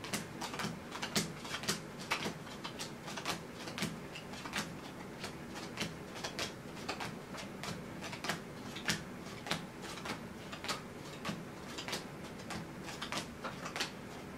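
Playing cards dealt one at a time face down onto a single pile on a felt mat, a short click with each card, about two a second.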